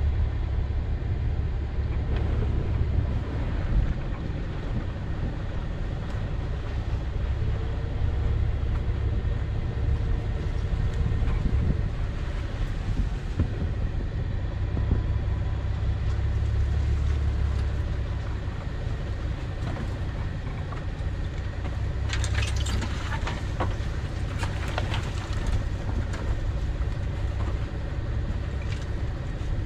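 Audi A6 C5 2.8 quattro with its V6 engine, running at low revs as it creeps down a steep snowy dirt track, heard as a steady low rumble through a bonnet-mounted camera. A few short knocks and scrapes come about three-quarters of the way through.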